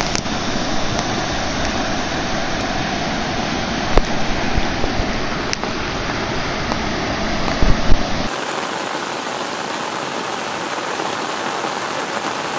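Fast-flowing floodwater rushing in a steady, loud noise with a deep rumble and a few brief knocks. About eight seconds in the sound cuts to a thinner, hissier wash of water with the rumble gone.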